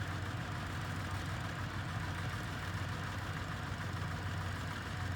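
Diesel engine running steadily at an even speed, a constant low hum.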